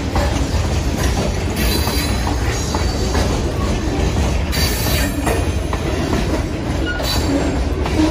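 Freight train hopper cars rolling past: a steady low rumble of steel wheels on rail with clicks over the rail joints, and a few brief wheel squeals.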